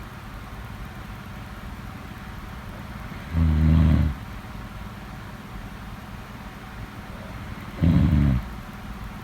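Snoring: two loud, low snores about four and a half seconds apart, each under a second long, over steady low background noise.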